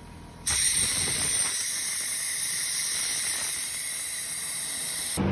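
Steady hiss of a pressurised spray, the kind used to blast through a carburetor while cleaning it. It starts suddenly about half a second in and cuts off abruptly shortly before the end.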